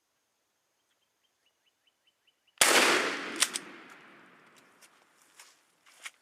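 A single shotgun blast about two and a half seconds in, its report rolling away over a second or so, followed shortly by a sharp click.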